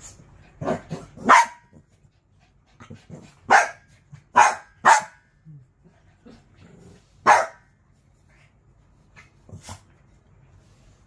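Small dogs barking in play: about eight short, sharp barks in scattered groups, with quieter scuffling between them.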